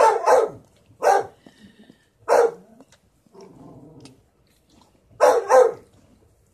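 A dog barking in the background: a quick pair of barks, two single barks about a second apart, then a pause and another quick pair near the end.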